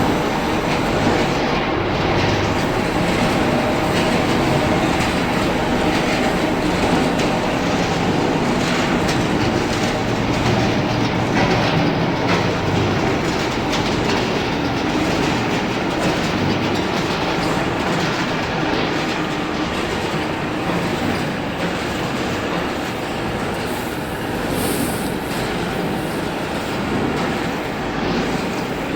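Continuous charcoal carbonization furnace line running: a steady, loud mechanical rumble with a faint hum and constant rattling clatter.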